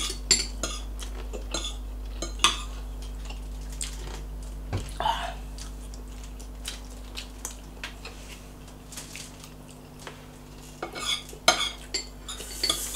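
Metal forks and spoons clinking and scraping on plates during eating, in scattered single clicks with a busier run of clinks near the end.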